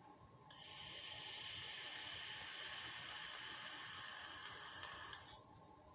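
A steady hiss, like air or spray escaping, that starts about half a second in and cuts off about five seconds in.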